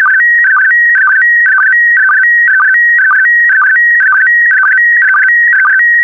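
Slow-scan TV picture signal in PD120 mode: a shrill electronic tone that keeps hopping between two pitches, with a short lower blip about twice a second as each pair of image lines begins. It is encoding a dark underwater photo line by line.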